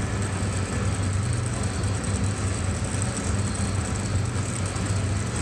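Steady, unbroken mechanical drone with a constant low hum.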